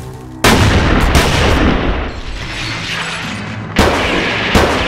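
Rapid gunfire from a film soundtrack: a dense run of shots begins about half a second in, with two more loud shots near the end.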